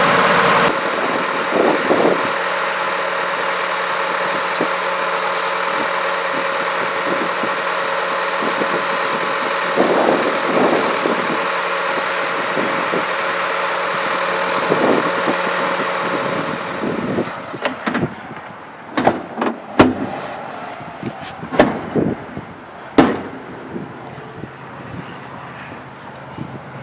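Jet turbine hot-air unit of a 1986 Ford D84 wing de-icer truck running with a loud, steady high whine over a lower engine drone. About 17 seconds in the whine drops away, leaving a quieter hum, and a series of sharp knocks and clunks follows.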